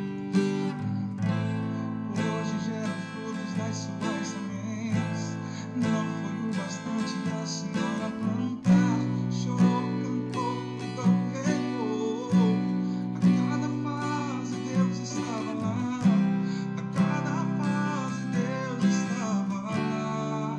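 Acoustic guitar strumming chords in a slow pop rhythm, played along with a recorded song. A singer's voice from the track comes in about nine seconds in, and the strumming gets heavier there.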